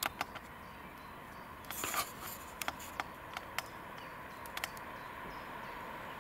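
Quiet trackside sound of a diesel locomotive still far off on its approach: a faint steady hum, with a few sharp clicks and a short rustling scrape about two seconds in.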